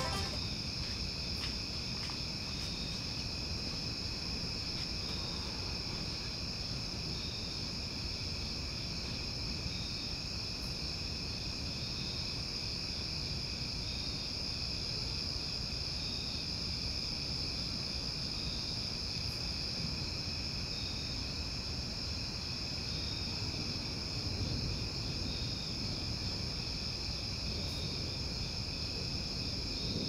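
Steady chorus of insects: a continuous high-pitched trill with a fainter, lower trill and a softly pulsing line between them, unchanging throughout.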